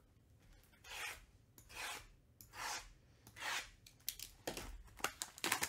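Shrink-wrapped cardboard card boxes scraping and rubbing against each other as they are slid into a stack: four swells of scraping about a second apart, then a few sharp clicks and crinkles of the plastic wrap near the end.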